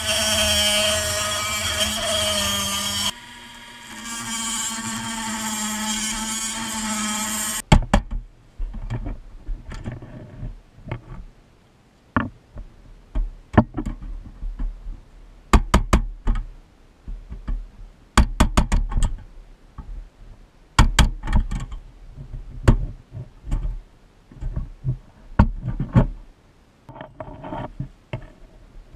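Rotary tool with a cutoff wheel running against the pressed-steel body of a toy truck, a steady motor whine that dips briefly around 3 s and cuts off abruptly after about 7 s. Then scattered sharp clicks and knocks of small metal parts and hand tools being handled on a workbench.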